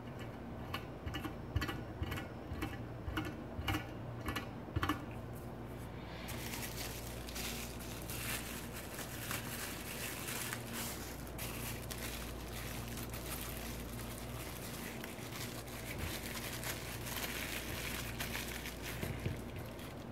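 A run of about ten light clicks and knocks over the first five seconds as the small Stirling engine model is handled, then clear plastic parts bags crinkling as they are picked up and opened.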